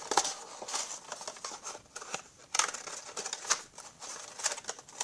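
Cardboard box and foil card-pack wrappers scraping and crinkling as a hockey card box is worked open and its packs pulled out. The crackles come irregularly.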